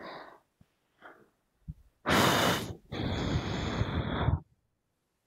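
A man breathing out heavily close to the microphone: first a short puff of air about two seconds in, then a longer sigh lasting about a second and a half, after a couple of faint clicks.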